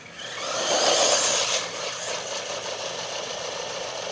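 Battery-powered RC car driving off across asphalt: motor whine and tyre noise swell about half a second in, peak soon after, then run on steadily.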